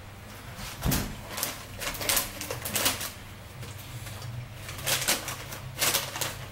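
A plastic snack bag crinkling as it is handled, in irregular clusters of short crackles, over a steady low hum.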